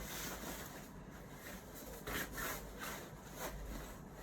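Rustling and swishing of a puffer jacket's fabric as it is handled and worn, with a few short scratchy swishes about two and three and a half seconds in.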